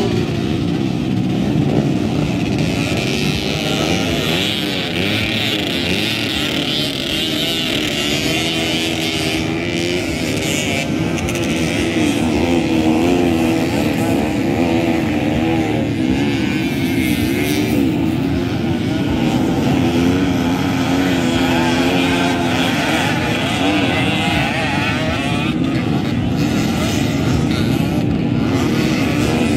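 Several motocross bikes racing on a dirt track, their engines revving up and falling back again and again as they ride the course, one over another.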